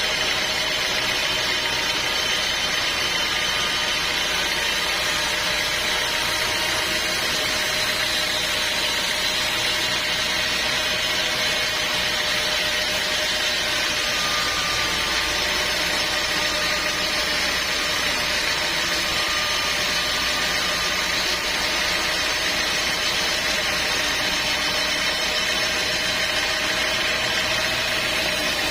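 Sawmill machinery running steadily: a constant mechanical drone with several steady whining tones, unchanged in level throughout.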